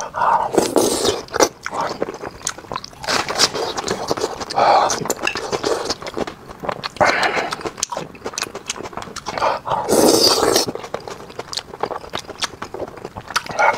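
Close-up eating sounds: wet lip smacks and chewing clicks with several louder sucking slurps as soft braised fish is eaten from chopsticks. The loudest slurps come about a second in and again near ten seconds.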